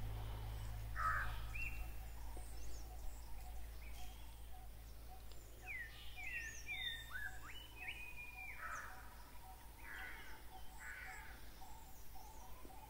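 Several wild birds calling in open woodland: a few harsh calls, a quick run of short sweeping whistled notes in the middle, and faint high chirps, over a low rumble that fades out in the first few seconds.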